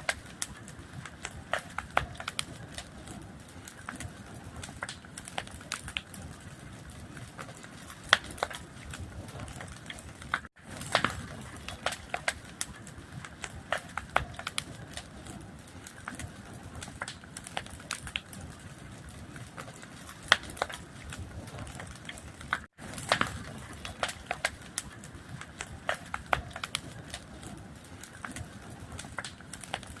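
Wood fire crackling, with sharp irregular pops and snaps over a steady low rustle and hiss. The sound cuts out for an instant twice, where the recording loops.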